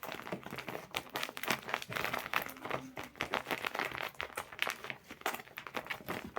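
Crinkly packaging being handled, a rapid, irregular run of crackles and rustles as a squishy toy is taken out and turned over in the hands.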